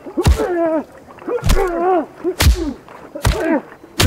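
Fist-fight punch impacts, five sharp whip-like hits roughly a second apart, each followed by a man's short grunt or cry that falls in pitch.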